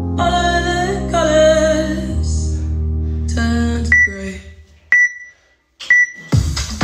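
Background music with a sung line, then a workout interval timer's three short high countdown beeps, one a second, marking the last seconds of rest. Louder electronic music starts right after the third beep, near the end.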